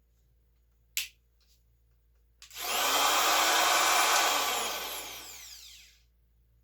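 A power tool is switched on about two and a half seconds in, runs at full speed for a second or so, then is let go and coasts down, its pitch falling as it slows over a couple of seconds. A single sharp click comes about a second in.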